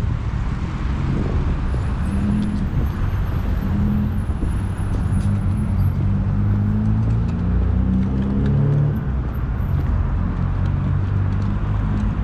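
Road traffic on a city street: cars driving past, a steady rumble of engines and tyres, with one engine rising in pitch about eight seconds in.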